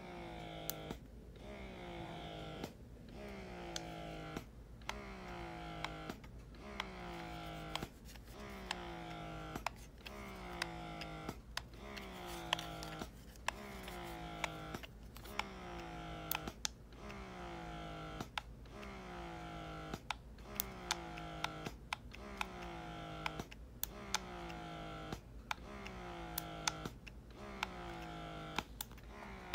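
Bellababy wearable electric breast pump running through its suction cycles, about one stroke a second: each stroke a falling motor whine ending in a click. Plainly audible, though the pump is sold as silent.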